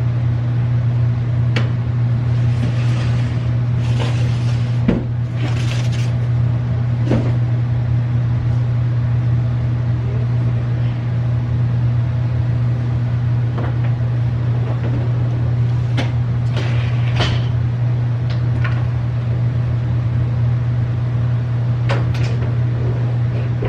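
A loud, steady deep hum throughout, with scattered knocks, clicks and rustles as cardboard boxes are handled and pushed into place.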